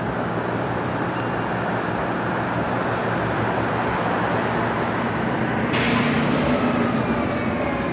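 Steady rumble of a heavy vehicle's engine, with a sudden loud hiss of released air, like an air brake, about three-quarters of the way through.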